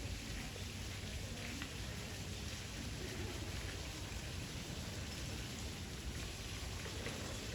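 Steady outdoor background noise: an even, rain-like hiss with a low rumble underneath and no distinct events.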